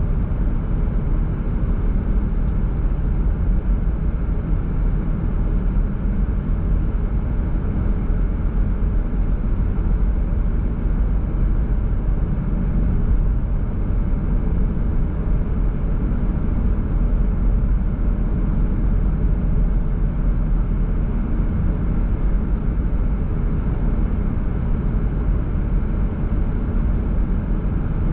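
Car driving at a steady speed: a constant low rumble of tyre, road and engine noise that stays even throughout.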